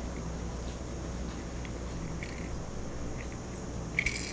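Handling noise from a small die-cast toy car turned over in the fingers: faint ticks and clicks, then a short rattle about four seconds in, over a low steady hum.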